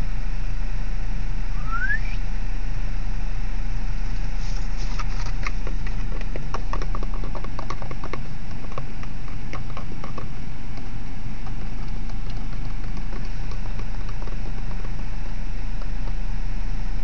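Steady low rumble of a car idling, heard from inside the cabin. A brief rising squeak comes about two seconds in, and a spell of irregular clicks and ticks falls between about four and ten seconds in.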